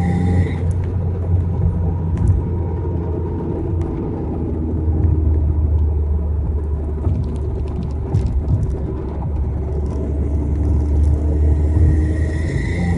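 Volkswagen Jetta giving a steady, deep rumble with slowly shifting tones above it. A higher tone cuts out about half a second in and comes back near the end.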